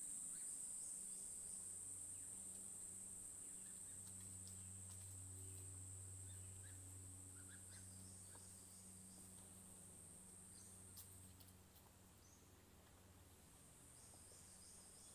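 Faint, steady high-pitched insect drone, with a few faint scattered chirps and a faint low hum through the middle.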